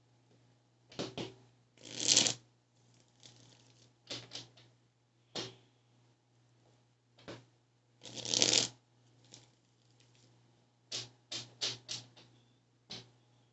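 A deck of tarot cards being shuffled by hand: short swishes and snaps, with two longer shuffles about two and eight seconds in and a quick run of card snaps near the end.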